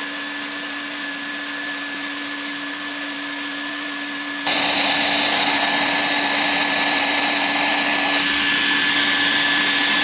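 Hot-air plastic welding gun running steadily, its blower giving a constant hiss with a steady hum, while it speed-welds a filler rod into a polypropylene seam. About four and a half seconds in the sound jumps abruptly louder and brighter.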